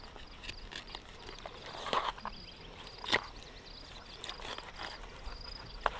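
A few short, soft knocks and scrapes of a knife cutting paddlefish flesh on a wooden cutting board, over a faint, high, steady insect trill.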